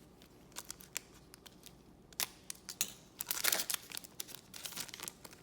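Trading cards handled and flipped through one by one: a string of short sharp card snaps and slides, with a longer rustle about three and a half seconds in.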